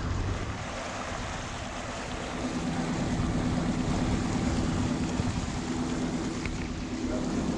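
Motorboat engine running steadily as the boat moves along, with water washing past the hull. The engine hum firms up and grows a little louder about two and a half seconds in.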